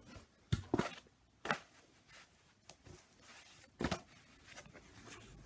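Handling noises: cloth rustling with several sharp knocks and clicks as pieces of stitched linen and a board are moved and set down.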